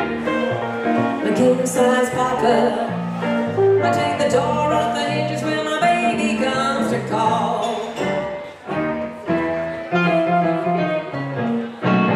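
Live blues band playing: hollow-body electric guitar and keyboard, with a voice singing. In the second half the music breaks into short, stop-start chords with brief gaps between them.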